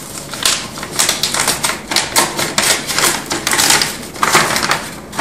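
Paper envelope being torn and pulled open by hand: irregular crackling and rustling of paper.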